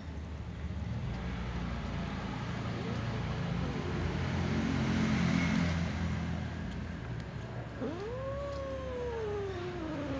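A domestic cat gives one long drawn-out call late on, rising and then sliding slowly down in pitch for over two seconds, after a short, fainter call about three seconds in. A steady low background noise runs underneath.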